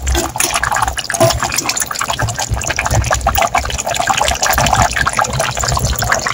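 Fish curry boiling in a pot, bubbling with a dense, irregular run of pops and low gurgles.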